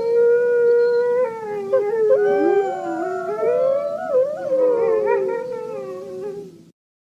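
A pack of canines howling together: several long howls overlapping, their pitch sliding up and down and crossing one another. The chorus cuts off abruptly near the end.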